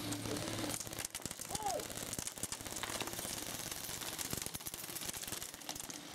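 Airsoft electric rifles firing in rapid, irregular bursts, a dense clatter of shots and BB hits on wooden barriers. A short call rises and falls about a second and a half in.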